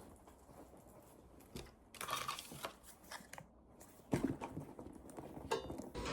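Intermittent crinkling and rustling, with a few short clusters of crackle about two, four and five and a half seconds in.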